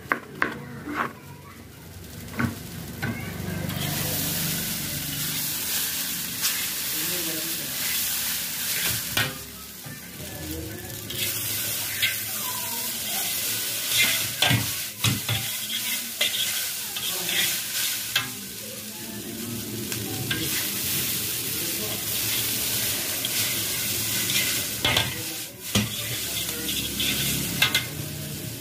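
A few knife chops on a cutting board, then chow mein noodles sizzling loudly in a hot wok as they are stir-fried. A metal ladle scrapes and now and then knocks against the pan.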